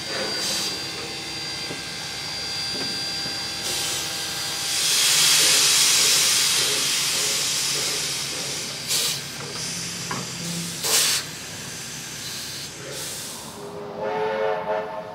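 Steam locomotive 3265, a 32 class 4-6-0, letting off a loud steam hiss that swells about five seconds in, with a few short sharp exhaust beats as it moves off, then a short whistle blast near the end.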